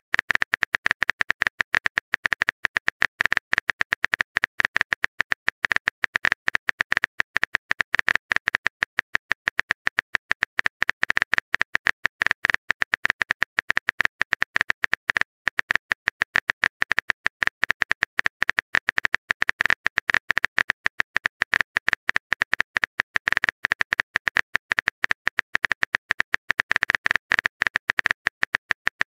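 Simulated phone-keyboard typing clicks from a texting-story app: a rapid, unbroken run of short, evenly spaced ticks, one per letter, as a long message is typed out.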